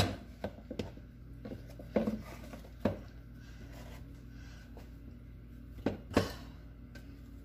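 Handling sounds of a plastic tub and a wooden spatula as bread dough is scraped and pushed into the tub: a sharp knock right at the start, scattered taps and knocks around two and three seconds in, and two more near six seconds.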